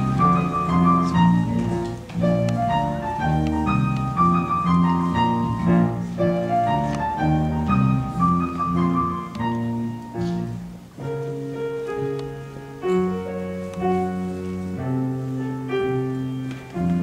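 Instrumental music led by piano, playing a bouncy melody of short notes; about eleven seconds in it changes to longer, held notes.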